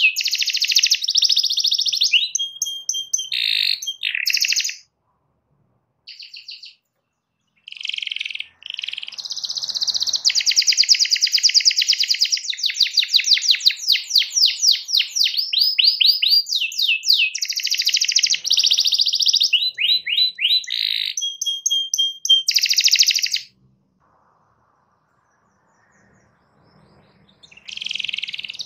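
Domestic canary in full song: long phrases of fast rolling trills mixed with held whistled notes. The song breaks off briefly a few seconds in, then stops for about four seconds near the end before starting again.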